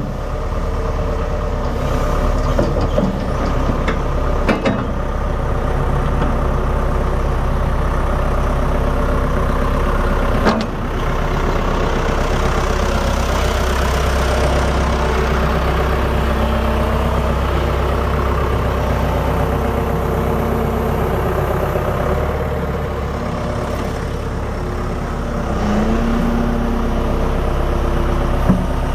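John Deere 490E excavator's four-cylinder turbo diesel engine running steadily while the machine is operated, with a few sharp knocks, the loudest about ten seconds in.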